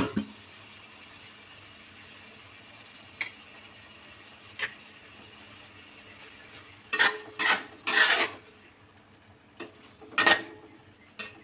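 Metal spatula scraping and clinking against a honeycomb-textured stainless steel wok while stirring the food: a couple of single clinks first, then a quick run of three scraping strokes about seven seconds in, and a few more strokes near the end.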